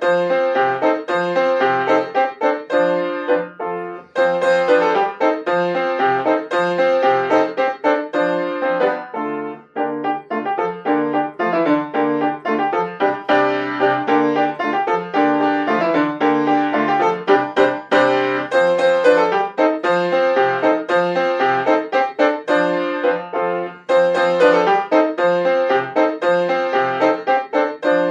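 Solo piano playing a dance movement in quick, rhythmic notes and chords.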